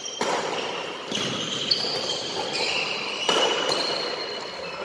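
Badminton play in a sports hall: court shoes squeaking in short, high squeals on the floor, and a few sharp shuttlecock hits and footfalls ringing in the hall's echo.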